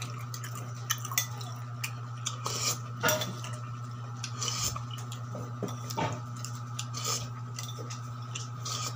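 Metal spoon scraping and clinking against a plate while scooping up soupy food, in scattered irregular clicks, over a steady low hum.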